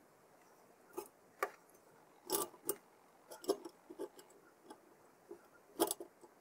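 Irregular light clicks and taps of small hard objects being handled, about a dozen of them. The loudest come near the middle and near the end.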